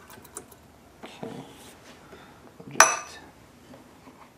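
Metal parts and tools clinking: a few light taps, a short scrape about a second in, then one sharp, ringing metal clink near three seconds in.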